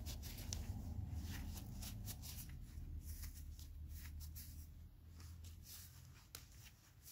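Cloth rag rubbing and wiping a small reed valve block, a quick run of scratchy rustles and light scrapes that thin out near the end.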